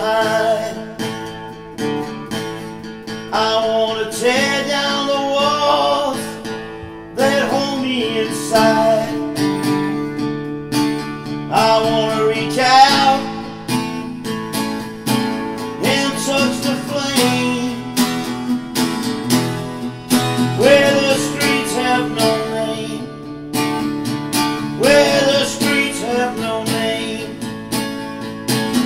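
Music: a song with acoustic guitar and a singing voice.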